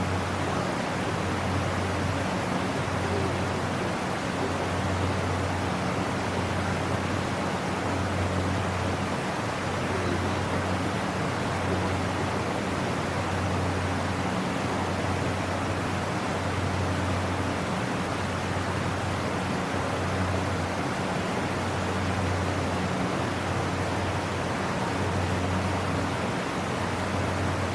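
Waterfall pouring steadily in a constant rushing noise, with a low hum beneath it that swells and fades every second or two.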